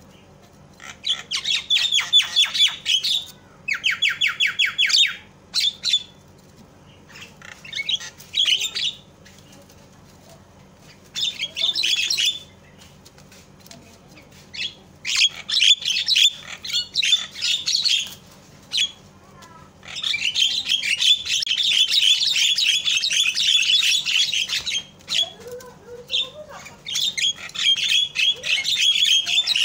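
Javan myna giving repeated bursts of harsh, rapid chattering calls, each burst one to four seconds long with short pauses between, one of them an even, fast rattle; the longest run lasts about four seconds, about two-thirds of the way in. This is the loud, agitated chatter used as a lure call to provoke silent mynas into calling.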